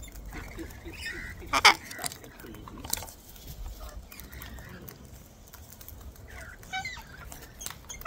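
A feeding flock of sulphur-crested cockatoos and rainbow lorikeets, with scattered chirps, squawks and soft clicks. One short, loud, sharp sound comes about a second and a half in, and a weaker one about a second later.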